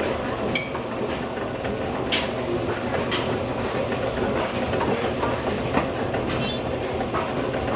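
Meat grinder running steadily: a continuous mechanical rumble with scattered clicks and knocks.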